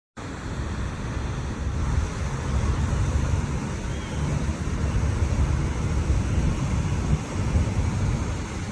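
Steady, uneven low rumbling noise, heaviest in the bass, with no distinct calls standing out.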